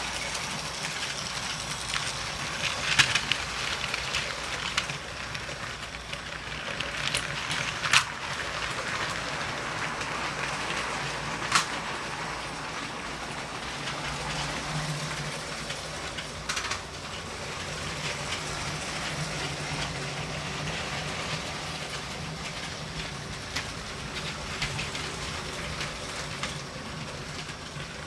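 LEGO toy train running on plastic track, its motor whirring and its wheels clattering steadily, with a few sharp clicks.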